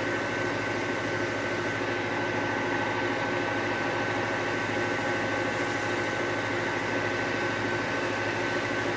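Wood lathe running steadily at speed, its motor giving a constant hum with a steady high whine. A wax-laden cloth is held against the spinning fir tool handle to apply the finish.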